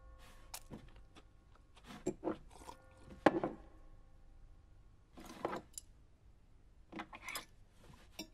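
Cutlery scraping and clinking against dinner plates in short, separate bursts, the loudest clink about three seconds in. A faint held music chord dies away over the first few seconds.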